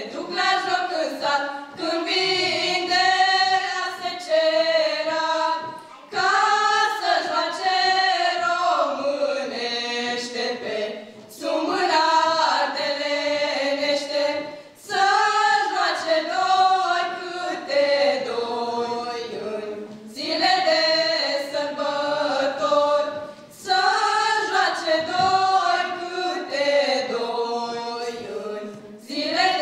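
Female vocal quartet singing a Romanian folk song a cappella into microphones, in phrases of a few seconds with short breaks for breath between them.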